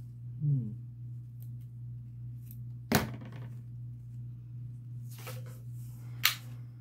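Handling sounds of crafting: one sharp scissors snip through ribbon about three seconds in, a short rustle of ribbon, and another sharp click near the end, over a steady low hum.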